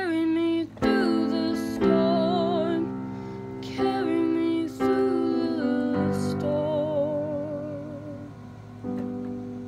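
A woman singing long held notes with vibrato over chords played on a digital piano, the closing bars of a slow ballad; a new chord is struck every second or two and the sound gradually fades.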